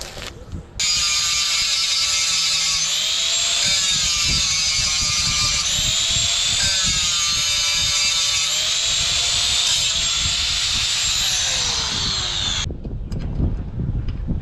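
Electric power tool working on metal: a loud, high whine over a grinding noise that rises and falls in pitch with the load. It starts abruptly about a second in and stops abruptly near the end.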